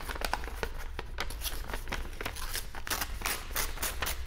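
A sheet of paper being creased and torn into strips by hand, with dense irregular crinkling crackles.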